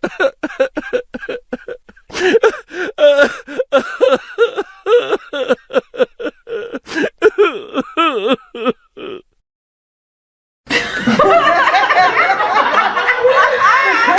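Laughter sound effect: a voice laughing in a long run of rapid, pitch-bending bursts for about nine seconds, cutting off suddenly. After a short gap, a second, denser laughter clip starts, with several pitches sliding up and down at once.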